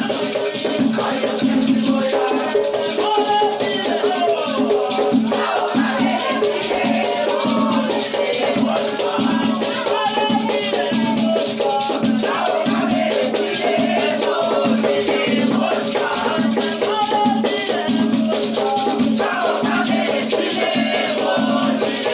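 Batuque ceremonial music: drums beating a steady rhythm, shaken rattles, and voices singing.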